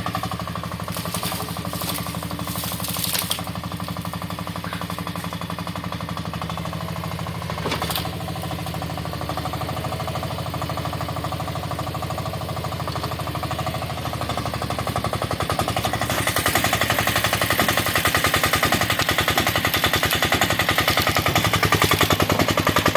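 Carter CT10 mini excavator's engine running with a fast, even pulse, with a few sharp knocks in the first seconds and another about eight seconds in. About two-thirds of the way through the engine gets louder and harsher as it takes on load.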